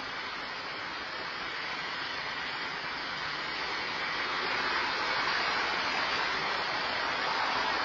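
Steady hiss of road traffic, swelling slightly about halfway through as cars pass on the road.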